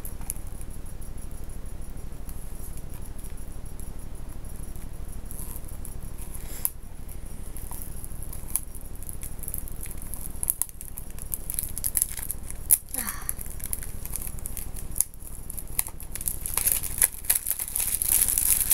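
Plastic shrink-wrap on a Blu-ray case crinkling and tearing as it is peeled open, with scattered clicks from handling the case. The crinkling gets busier near the end, over a steady low hum.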